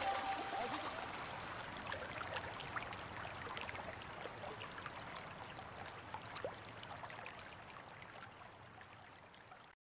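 Faint hiss with many small scattered crackles and chirps, fading out steadily and then cutting off shortly before the end.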